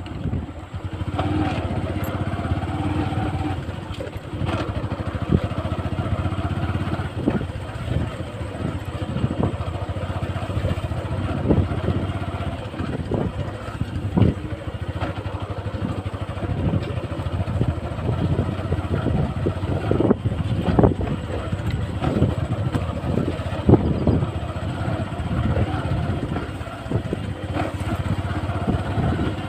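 Motorcycle running steadily while being ridden, heard from a helmet chin-mounted camera, with frequent short knocks and thumps.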